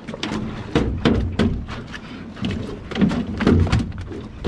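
A landed fish thrashing on a boat's deck: a run of irregular thumps and knocks, several of them heavy.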